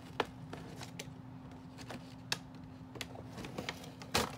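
Scattered light clicks and taps of a cardboard-and-plastic doll box being handled, with a louder click near the end.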